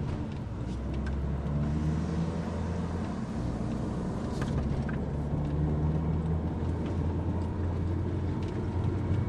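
A 2016 Ram Promaster City's 2.4-litre four-cylinder engine and road noise, heard from inside the van as it pulls away and accelerates, the engine note rising twice.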